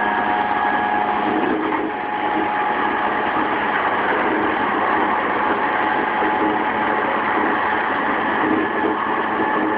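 JR East E233-3000 series electric train running at a steady speed, heard from inside a motor car: a continuous rumble of wheels on rail with a few steady whining tones from the traction motors and gears.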